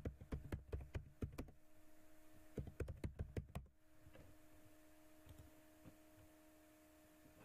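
Typing on a computer keyboard: a quick run of keystrokes, a short pause, then a second run about two and a half seconds in, over a faint steady hum.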